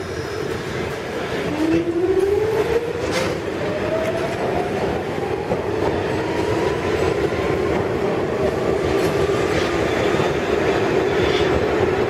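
Pullman Standard R46 New York subway train pulling out of the station: a whine that rises in pitch as it gathers speed over a steady rumble, with a few sharp clicks from the wheels.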